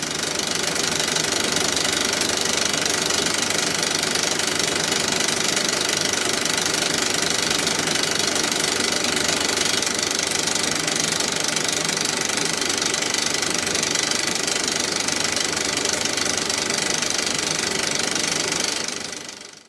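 Film projector running steadily, a mechanical running noise with hiss, fading out shortly before the end.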